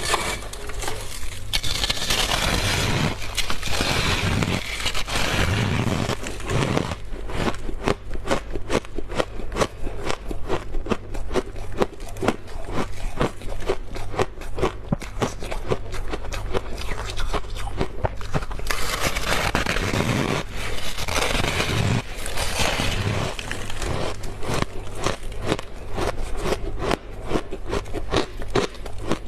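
Freezer frost being scraped and crunched close up, a dense run of sharp crackles, with two longer stretches of rough scraping, one early and one about two-thirds of the way through. A low steady hum runs underneath.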